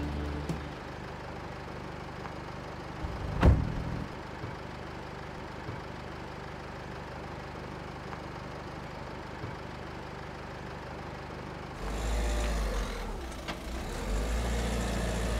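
A car door shuts with a single thump about three seconds in, over a steady low street hum. Near the end an MPV's engine starts to run and the vehicle pulls away from the kerb.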